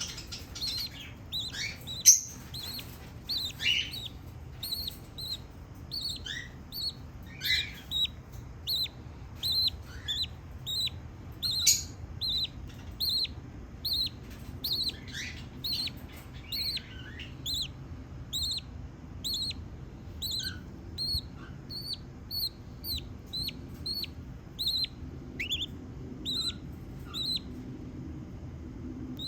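Baby budgerigar chirping over and over in short, evenly spaced chirps, about two a second, with a few louder, more varied calls in the first half. A single sharp knock sounds about two seconds in.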